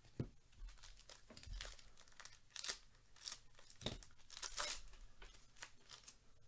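Foil wrapper of a 2022 Topps Update baseball hobby pack being torn open and crinkled by gloved hands: a series of short rips and crackles, the sharpest near the start and about four seconds in.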